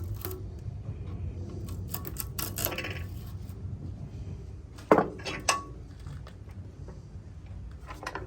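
Metal clinks and taps of a flathead screwdriver working over a ceiling fan motor's stripped stator, checking for leftover copper winding. The sharpest are two knocks about five seconds in, half a second apart, each ringing briefly.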